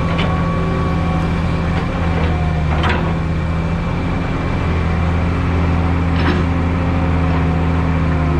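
Diesel engine of heavy earthmoving equipment running steadily at a constant speed, with a few short metallic knocks about three and six seconds in.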